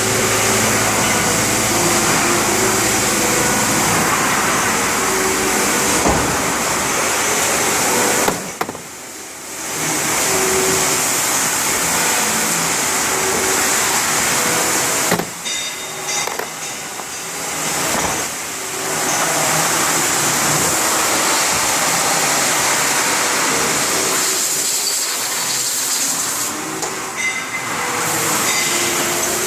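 CNC machine running: a loud, steady whirring hiss with shifting tones from its motors. It drops away briefly about eight seconds in, again around fifteen seconds, and again near twenty-five seconds.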